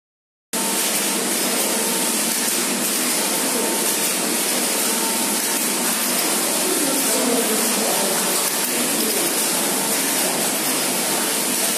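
Six-system (3+3) 100-inch flat knitting machine running: a steady mechanical whirring hiss from the carriages and machine as it knits.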